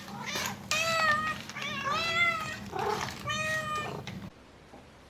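Domestic cat meowing repeatedly, about five short rising-and-falling meows, stopping about four seconds in.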